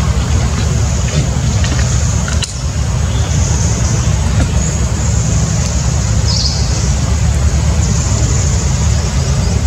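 Steady low rumble of outdoor background noise, with a fainter high hiss above it and a brief drop in level about two and a half seconds in.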